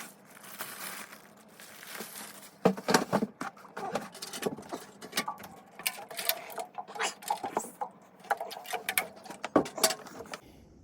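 Irregular clicks, taps and rustling of tools and parts being handled by hand, with a few sharper knocks about three seconds in and near the end.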